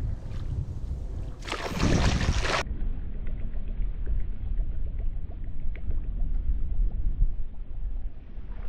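Wind buffeting the microphone as a steady low rumble, with a burst of hiss lasting about a second near the start.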